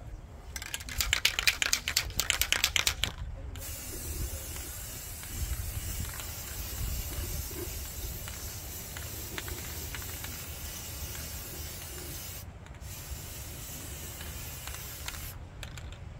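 Aerosol spray paint can rattled with quick, even clicks of its mixing ball for about three seconds, then sprayed in one long steady hiss, a short break about twelve seconds in, and a second burst that stops shortly before the end.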